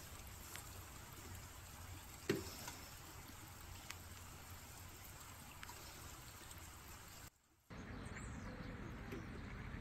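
Faint outdoor background by a pond: a low, even hiss and rumble with a few faint ticks and one brief louder sound a little over two seconds in. The sound cuts out completely for a moment after about seven seconds, then the same faint background resumes.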